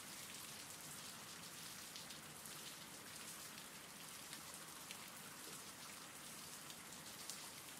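Faint, steady rain: an even patter of raindrops on a surface, from a rain-sounds ambience track.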